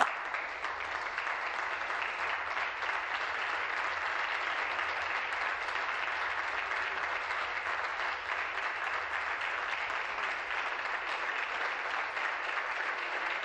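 Legislators applauding steadily, a dense sustained clapping with no let-up.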